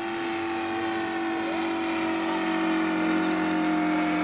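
Engine of a radio-controlled Stearman biplane running steadily as the model flies past overhead: a buzzing drone that grows louder and drops slightly in pitch toward the end.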